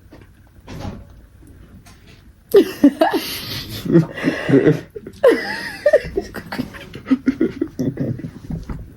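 People laughing and chuckling, starting abruptly about two and a half seconds in and going on in short loud bursts after a quiet start with a few faint clicks.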